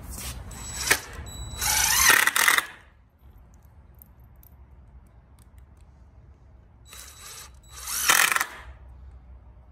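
DeWalt cordless drill driving deck screws into pressure-treated lumber, in two runs: one about two seconds in and another near the end, each a short burst followed by a longer drive.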